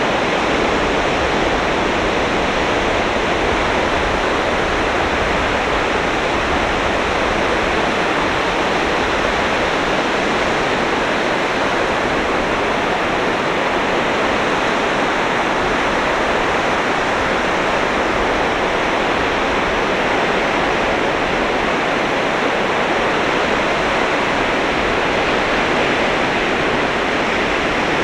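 Sea surf washing onto a beach: a steady, even roar of waves with no single break standing out.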